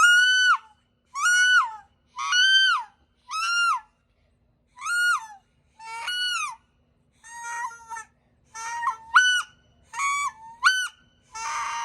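Duck Commander Woody wood duck call blown in a series of about a dozen whistled notes, each sliding up and then dropping off at its end. The notes come closer together in the second half: an imitation of wood duck calling.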